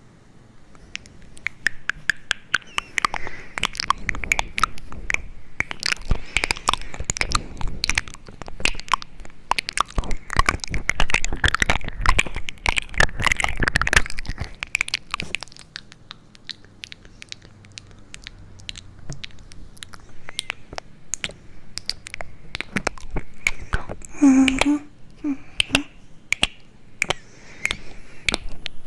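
Close-miked crackling and clicking: a rapid, irregular stream of small crunchy clicks, densest in the first half and thinning out later, with a brief pitched sound about 24 seconds in.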